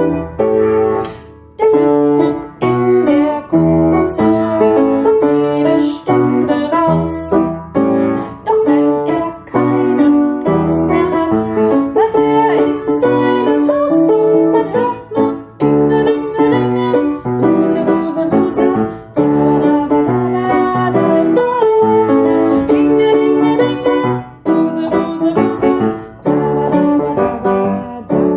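Piano playing a children's song melody with lower accompanying notes, one note after another in a steady tune.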